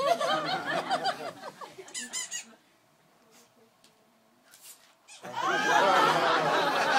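Rubber balloon animal squeaking as it is handled, in wavering squeals over the first two seconds. The sound then drops to near silence for about two and a half seconds before loud crowd chatter and laughter come back.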